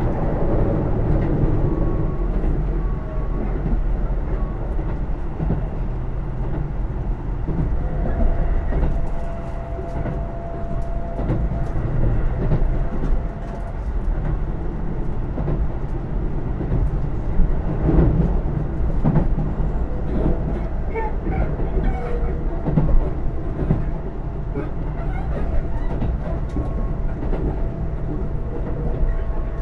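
Keisei AE100-series electric train running at speed, heard inside the passenger car: a steady rumble of wheels and running gear, with scattered clicks of the wheels over rail joints and a faint steady whine coming and going.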